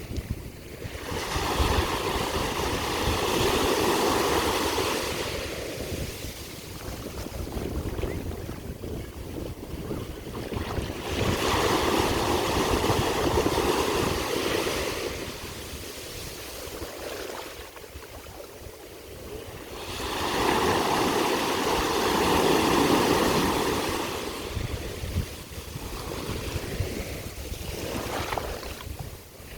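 Ocean waves breaking on the shore: three swells of surf about ten seconds apart, each rising and then washing away, over a low steady rumble of the sea.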